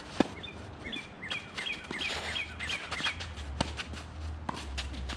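Tennis ball being struck on an outdoor hard court: one sharp, loud hit just after the start, then several more hits and bounces about a second apart. Between them a bird gives a quick run of about seven short chirps.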